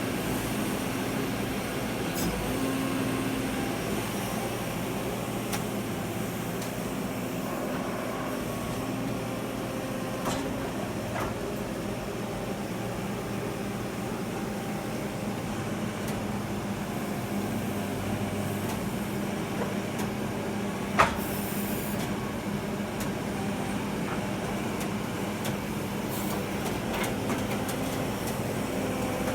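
Menzi Muck M220 walking excavator's diesel engine running steadily under hydraulic work, with scattered clicks and one sharp knock about two-thirds of the way through.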